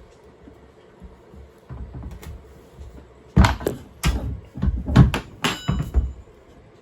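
Irregular metal knocks and clanks of hand tools working a bolt on an Audi subframe, drawing solid aluminum bushings into their bores; a quiet stretch first, then a cluster of sharp knocks over the last few seconds.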